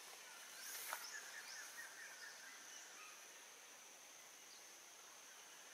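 Faint forest ambience: a steady high-pitched insect drone with scattered bird chirps, mostly in the first couple of seconds, and a faint tap about a second in.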